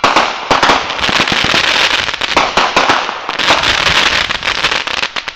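Aerial fireworks bursting overhead in a dense run of rapid crackling pops and sharp bangs that cut off abruptly at the end.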